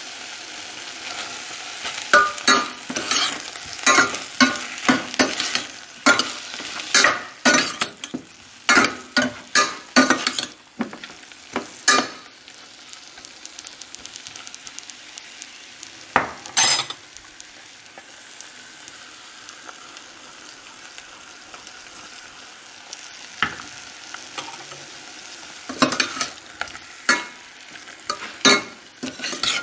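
Green beans and potatoes frying with a steady sizzle in a stainless steel pot, while a metal spoon stirs and scrapes against the pot in clusters of quick strokes. A calmer stretch of plain sizzling comes in the middle.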